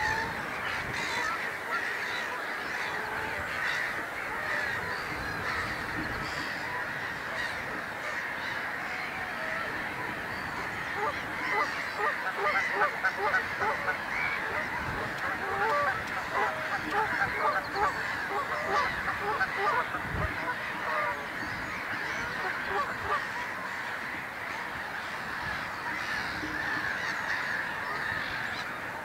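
Dense chorus of many water birds calling together, a steady din, with a louder stretch of quick repeated calls in the middle.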